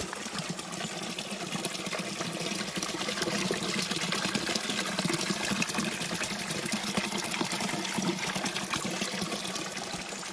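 Small creek water trickling and splashing down over rocks in a little cascade, a steady rushing that is loudest through the middle.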